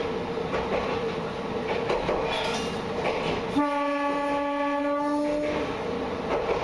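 Diesel railcar running on jointed track, a steady drone with light rail-joint clicks. About halfway through the train's horn sounds one steady note for about two seconds.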